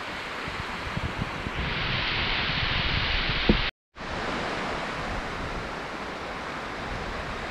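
Steady rushing of surf on the beach mixed with wind noise on the microphone. A brighter hiss joins about a second and a half in, then the sound cuts out for a moment just before four seconds in and comes back.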